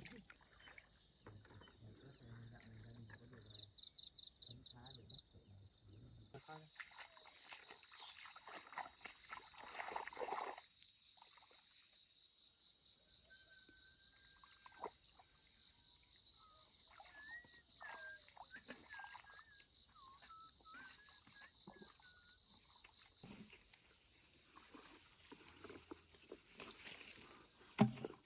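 Steady high-pitched chorus of insects chirring, with a few short whistled bird notes in the middle; the chorus thins out near the end.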